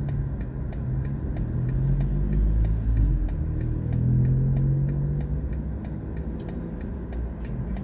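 BMW i4 M50 electric car pulling away, heard inside the cabin: a low drive hum and road rumble swell as it accelerates, with a faint rising whine. A steady light ticking runs underneath.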